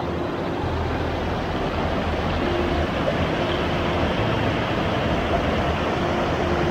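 Shallow mountain stream running over boulders and stones, a steady rushing of water.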